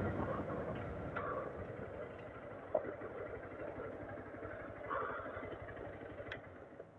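2022 Honda Titan 160 motorcycle's single-cylinder engine running as the bike rolls slowly along the curb, the engine and wind noise fading as it slows down.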